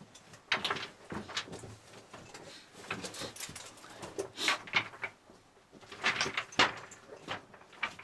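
Irregular scraping and scuffing of clothing and boots against rock, with loose stones shifting, as people crawl through a tight rocky squeeze; several louder scrapes come about half a second in, around the middle and past six seconds.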